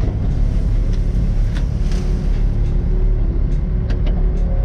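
Komatsu excavator's diesel engine running steadily at idle, a constant low rumble with a few light clicks.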